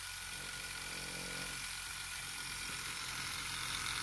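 Pulse motor driven by an iron-core Bedini coil, running steadily at about 4 volts after settling to a constant speed. It gives a quiet, even hum with a few thin high tones.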